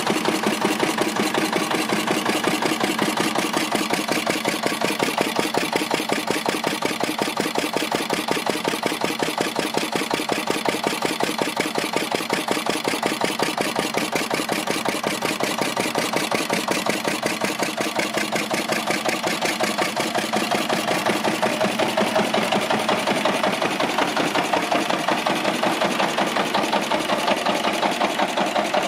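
Lister-clone single-cylinder diesel engine, rated 16 hp and driving a 12 kW generator head, running steadily with an even, rapid beat of firing strokes.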